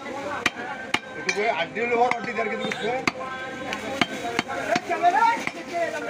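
Heavy cleaver chopping beef on a wooden chopping block: sharp, irregular knocks, roughly one to two a second.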